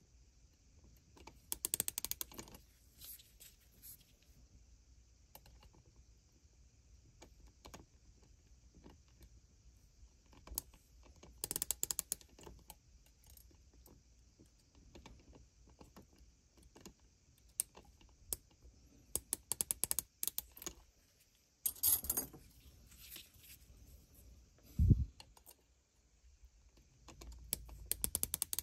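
Metal rifle gas tube clicking and rattling against the anvil and spindle of a bench-mounted digital micrometer as it is turned and slid through for measurement, in scattered clusters of small metallic clicks. A short low thud a few seconds before the end is the loudest sound.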